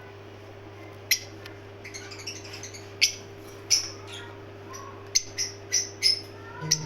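Parblue lovebirds giving short, sharp chirps, scattered singly and in quick clusters, over a steady low hum.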